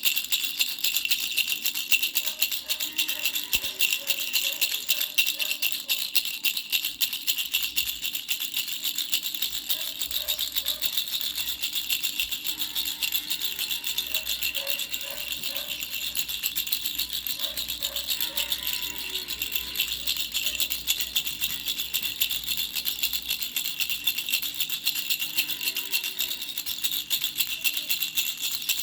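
Baby rattle shaken continuously: a fast, dense, steady rattling with a bright, high sound.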